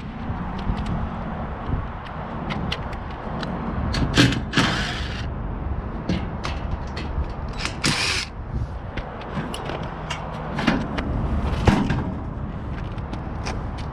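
Tools and hardware being handled: scattered clicks and knocks with a couple of short scraping rustles, over a steady low rumble.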